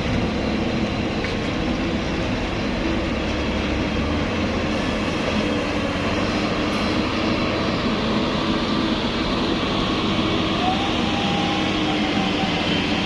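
Heavy coal truck's engine running steadily.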